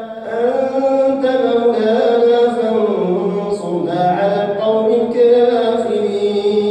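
A man's voice chanting Quran recitation in melodic tajweed style, drawing out long held notes that glide slowly up and down, with a short pause for breath at the start.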